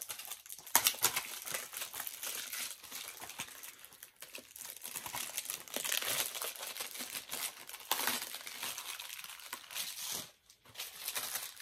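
Plastic wrapping crinkling and tearing as a Blu-ray case is unwrapped and handled by hand, with many small crackles.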